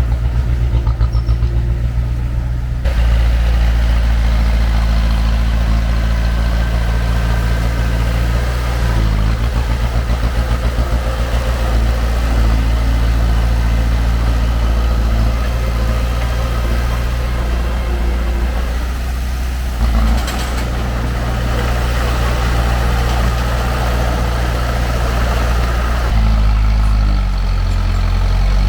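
Heavy diesel engine of earthmoving machinery running steadily, its note shifting with load a few times, with a brief knock about twenty seconds in.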